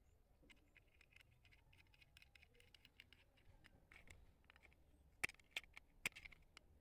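Faint small metallic clicks and scratches as a hex nut is threaded onto a threaded antenna socket in a plastic earbud case and then gripped with needle-nose pliers, with a few sharper clicks about five and six seconds in.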